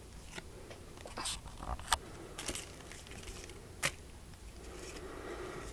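Trading cards being handled and flipped through: light rustles with a few sharp card clicks, two of them standing out, about two seconds in and near four seconds.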